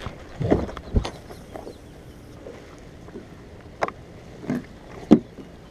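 Several sharp knocks and thumps, the loudest near the end, as fishing gear is handled aboard a bass boat, over a steady low background.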